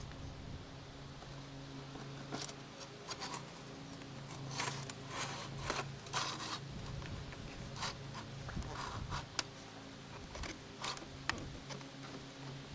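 Irregular short scraping strokes from a scraper working old tar sealant off a camper roof, starting about two seconds in, over a steady low hum.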